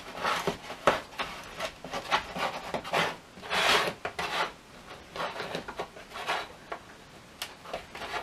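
Small metal pie tins lined with crust being shifted and set down on a parchment-lined baking sheet: irregular dry rubbing and scraping with a few light knocks, the longest scrape about three and a half seconds in.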